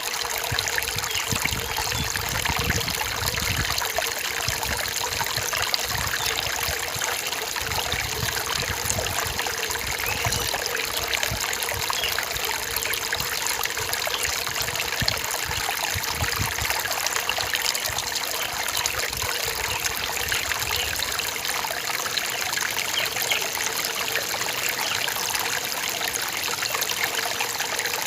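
Forest stream trickling steadily, a continuous rush of running water.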